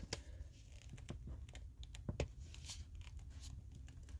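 Faint handling of a plastic Kraftgeek selfie-stick tripod: scattered light clicks and rubbing as fingers work its push button and grip, with one slightly stronger click about two seconds in, over a low steady room hum.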